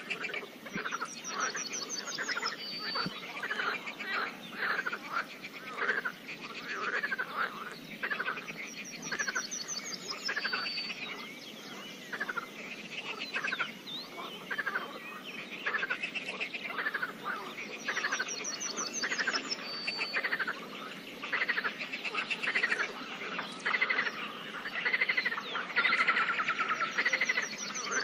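A chorus of pond frogs croaking, many overlapping calls repeating without pause. A bird sings a short, high trill about every nine seconds.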